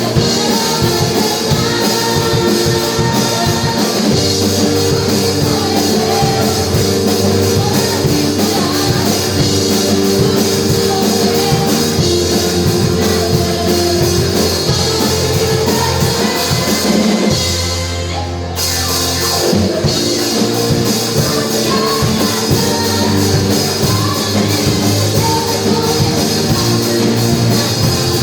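Rock band of guitars, bass, drums and keyboards playing live. About two-thirds of the way through, the cymbals and high end drop out for a moment and the music dips, then the full band comes back in.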